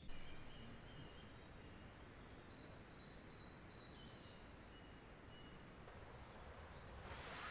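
Faint outdoor background with small birds chirping, a quick run of short high chirps about two to four seconds in. Near the end a louder rasping noise starts, the tent's door zip beginning to open.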